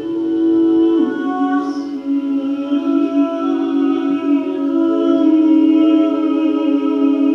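A woman's wordless voice in layered, sustained drone notes, amplified through a microphone and effects pedal. The held tones overlap and shift pitch about a second in and again near five seconds.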